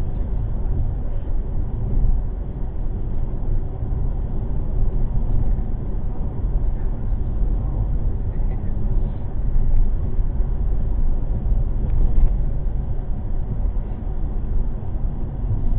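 Steady low rumble of a car driving on the road, tyre and engine noise heard from inside the cabin.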